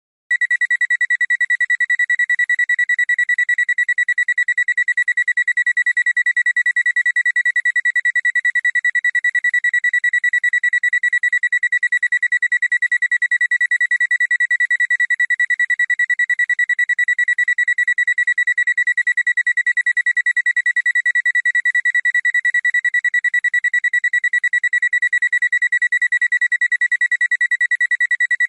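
Alarm clock beeping: a rapid, even run of high-pitched beeps, all at one steady pitch, starting a fraction of a second in.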